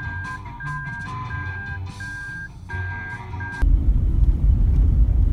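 Background music with a short high note repeating about twice a second, cut off about three and a half seconds in by the loud low rumble of a car driving, heard from inside the cabin.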